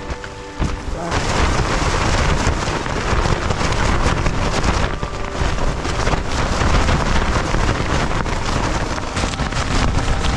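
Strong gale, around 50 mph, buffeting the microphone and shaking a tent's fabric in a loud, continuous rush. It rises about a second in after a brief lull, then keeps gusting without let-up.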